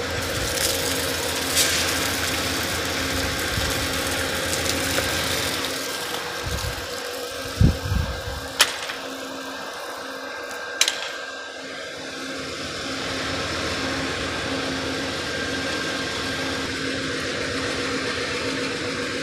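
Steady drone of an Amtrak P42DC diesel locomotive idling, with a few short knocks and two sharp clicks about halfway through.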